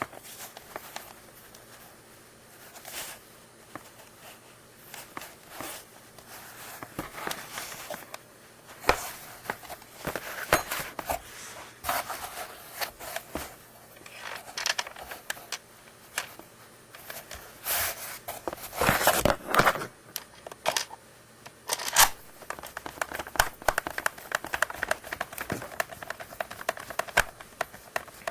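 Hands working on the plastic parts of an oral irrigator during disassembly: scattered plastic clicks, scrapes and crinkling, busiest about ten seconds in and again near the twenty-second mark.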